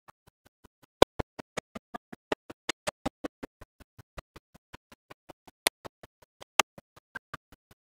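A fast, even run of short clicks, about five a second, with silence between them and a few sharper, louder ones scattered through.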